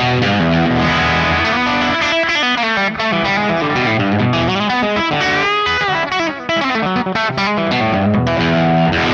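Electric Telecaster on its Dreamsongs Vintage '50s bridge pickup, played through a Kemper profiling amp with delay in a crunchy overdriven tone. Chords and single-note lead phrases with a bent note near the middle.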